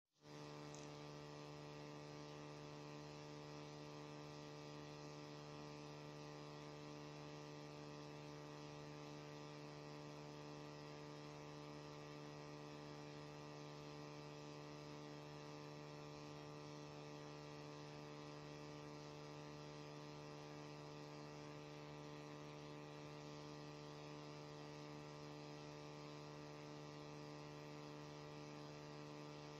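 Faint, steady electrical hum: a constant buzzing drone that never changes.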